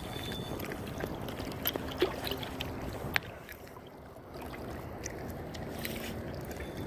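Water sloshing and lapping against a kayak's hull, with a few sharp clicks and knocks about two and three seconds in.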